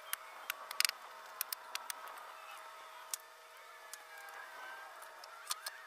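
Scattered sharp clicks and taps from hands-on work around a timber beam, with a quick cluster about a second in and two more near the end, over a faint steady outdoor background.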